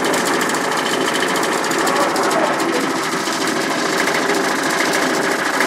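Gas-detector cabinet being shaken on a vibration test rig: a steady, fast buzzing rattle of the enclosure and its fixture.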